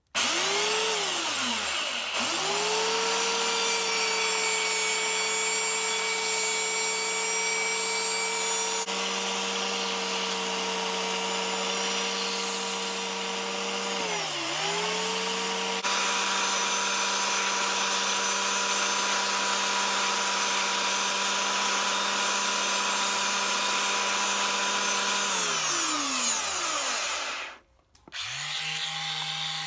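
Electric belt sander running steadily, with its abrasive belt grinding the end of a wooden hammer handle; the motor's pitch dips briefly about halfway through and winds down near the end as it is switched off. Just before the end a different small power-tool motor starts with a lower, steady hum.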